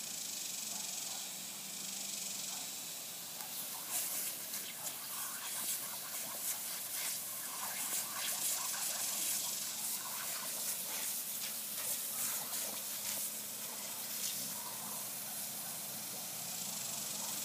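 Water spraying from a leak in a garden hose with a steady hiss, and from about four seconds in a boxer dog snapping and lapping at the spray, with many short wet splashes and clicks.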